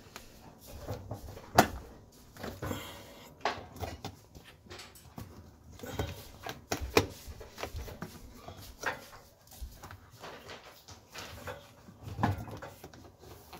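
Irregular clicks, taps and rubbing as a new rubber door gasket is pushed by hand into its channel around a Bosch dishwasher's tub, with a sharp knock about one and a half seconds in.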